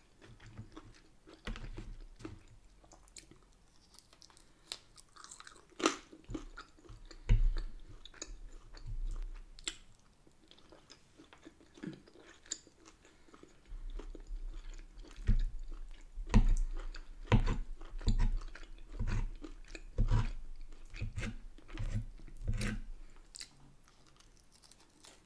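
A person chewing and biting bacon and fried mushrooms: irregular bites and chews, sparse at first and coming thick and fast from about halfway through.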